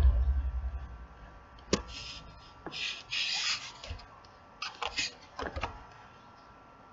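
Scattered sharp clicks and short rustling noises, with a low rumble dying away in the first second.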